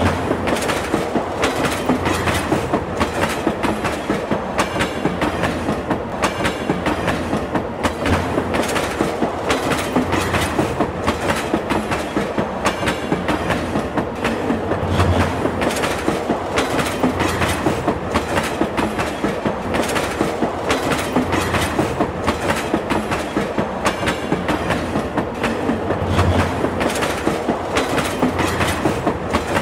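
Railway carriage wheels clacking over rail joints in a steady, rapid rhythm as a train runs along the track, with a few heavier low thuds mixed in.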